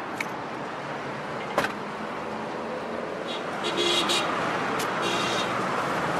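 Street traffic noise, a steady hiss of passing cars, with a sharp click about a second and a half in and some brief high-pitched tones past the middle.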